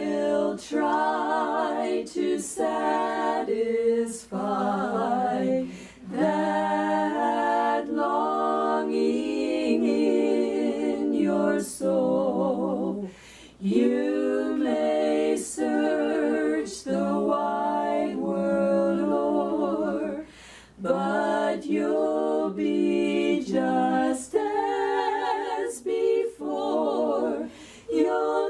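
Women's voices singing a gospel song a cappella in harmony, several parts at once, with vibrato on held notes and brief breaks between phrases.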